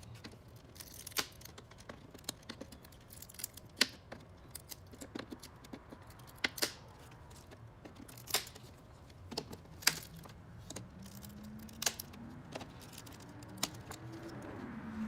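Irregular sharp plastic clicks and snaps as a flathead screwdriver pries the push-in clips out of a Toyota Camry's plastic grille, a couple of dozen over the span.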